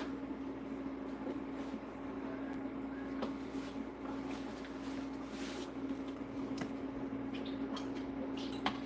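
Battered Oreos deep-frying in a small saucepan of oil, a soft steady sizzle over a steady low hum, with a couple of light clicks.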